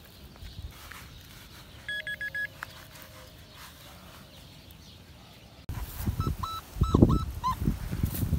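Short electronic metal-detector beeps: a quick run of about five high beeps about two seconds in, then near the end several short, lower signal tones over loud rustling and thumps close to the microphone.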